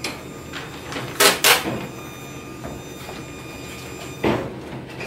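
A few sharp knocks and clatters of something being handled, two in quick succession a little after a second in and another near the end, over a faint steady background.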